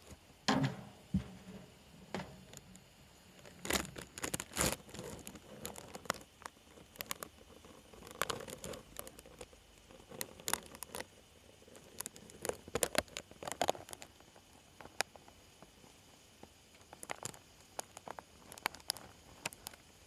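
A Schneider's skink eating from a small ceramic dish held by hand. Its mouth and claws on the dish and its feet on the gravel substrate make irregular sharp clicks and crackles, with a soft knock about half a second in.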